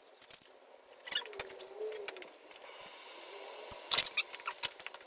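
Small metal and plastic parts clinking and rattling as they are handled, with scattered clicks and the sharpest clicks about four seconds in.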